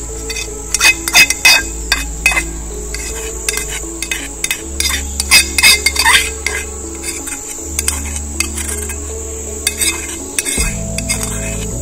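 Metal utensil clinking and scraping against a metal cooking pot as hot Maggi noodles are stirred and served out, in quick irregular clusters of clinks. Background music with slow sustained low notes runs underneath.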